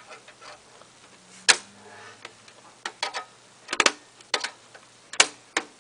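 Sharp, irregular clicks and knocks, some in quick pairs, from computer hardware or its packaging being handled.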